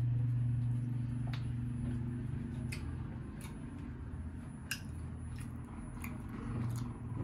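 Soft squishing and scattered sharp clicks of naan being torn and dipped into a bowl of curry, over a steady low hum.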